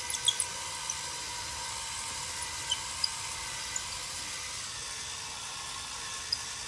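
Cordless drill spinning a foam buffing pad with polishing compound against a plastic headlight lens, a steady, even motor whine.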